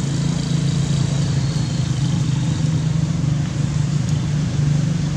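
Steady low engine drone, an unseen motor running without change in pitch or level.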